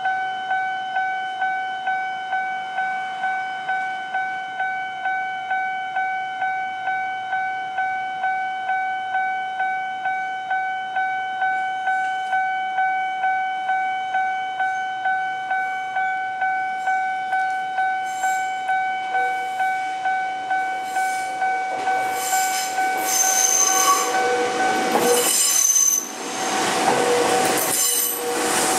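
Japanese level-crossing warning bell ringing in a steady, even "kan-kan" about twice a second. About 22 seconds in, an electric train of the Gakunan Railway runs over the crossing, and its wheels rumble and squeal loudly over the bell.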